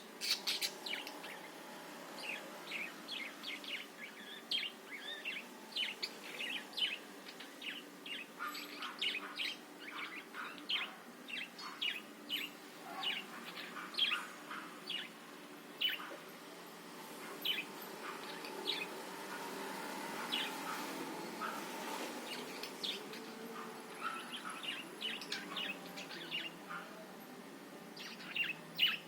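Budgerigar chattering in quick, short, high chirps, with a lull of a few seconds past the middle.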